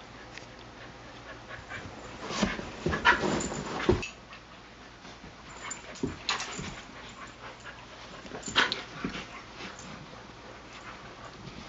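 Two dogs play-fighting: short dog vocalisations come in several bursts, the loudest a few seconds in, with more near the middle.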